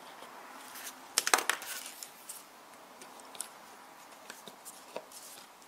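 Small metallic clicks and scrapes of needle-nose pliers pushing a capacitor's wire leg into a solderless breadboard: a quick cluster of clicks a little over a second in, then a few faint scattered ticks.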